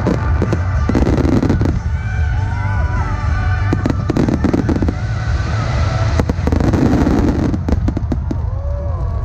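Starmine fireworks barrage: rapid shell bursts and crackling over a continuous low rumble, with music playing along.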